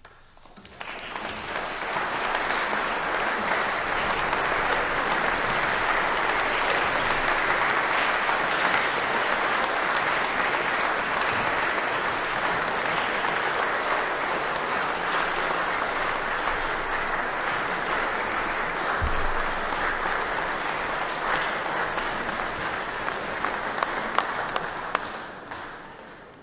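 Concert audience applauding, starting about a second in, swelling quickly to a steady level and fading out near the end.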